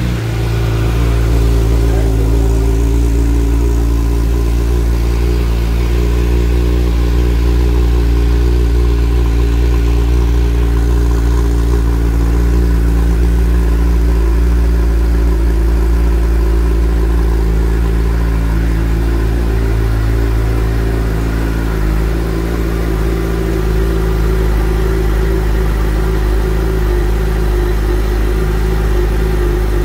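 2022 Suzuki Hayabusa's inline-four engine idling steadily, its exhaust note holding an even pitch with no revving.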